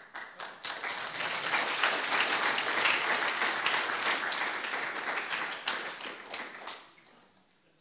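Audience applauding: many hands clapping, starting abruptly, holding for several seconds and dying away after about seven seconds.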